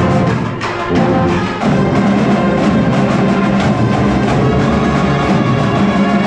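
A school band playing, with sustained pitched notes over a steady drum beat struck several times a second.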